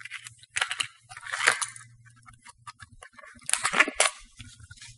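Plastic bag packaging crinkling in several short bursts as a plastic wedge tool is unwrapped, over a faint steady low hum.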